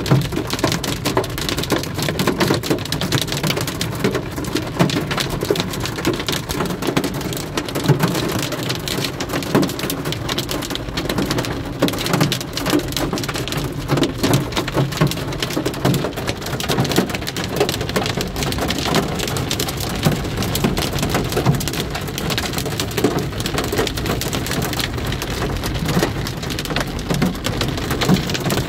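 Heavy rain falling steadily, a dense patter of countless drops hitting a surface.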